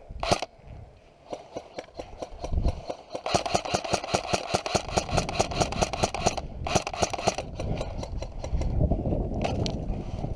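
Airsoft electric gun firing on full auto: a rapid, even rattle of shots. A long burst of about three seconds starts a few seconds in, followed right after by a shorter burst.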